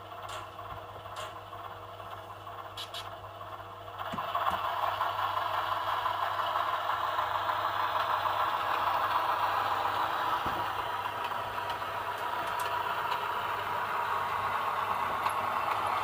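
Bachmann Doodlebug model railcar starting to move about four seconds in, then running along the track with a steady mechanical running noise. A few faint clicks come before it starts.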